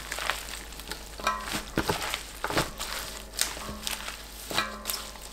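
Gloved hands tossing and squeezing red leaf mustard, radish greens and green onions through wet chili-paste seasoning in a stainless steel bowl: irregular wet squelches and rustles of the coated greens, roughly every half second.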